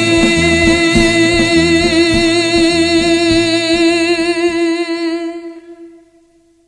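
Closing bars of a recorded Greek popular song: a long held note with vibrato over a pulsing bass and drum beat, fading out about five to six seconds in.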